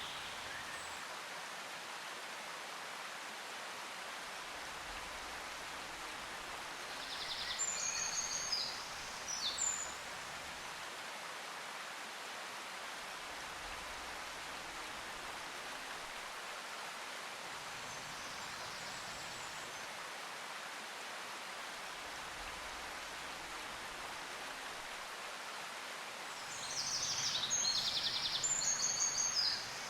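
Steady even hiss of an outdoor nature ambience, like running water or rain, with a small bird's quick chirping phrases twice: about seven seconds in and again near the end.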